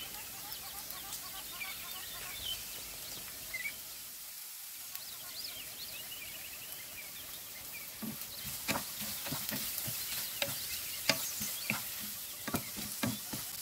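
Vegetable and chicken filling sizzling quietly in a nonstick frying pan. From about eight seconds in, a wooden spatula stirs it, scraping and knocking against the pan many times in quick succession.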